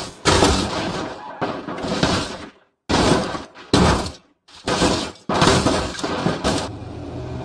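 A series of loud crashing sound effects, about eight abrupt bursts in a row, each cut off sharply, giving way near the end to a steadier noise.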